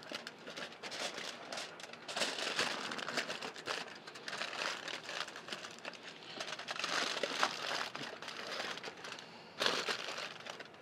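Aluminium foil crinkling and crumpling as it is folded and pressed by hand around a rack of smoked beef ribs, in uneven bursts, with a louder rustle near the end.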